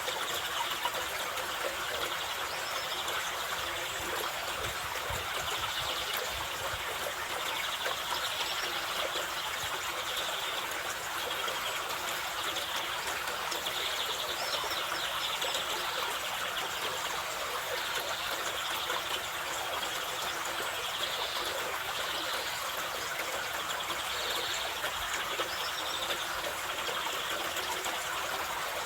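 Mountain river rushing steadily over rocks, an even wash of water noise. A few faint bird chirps come through now and then.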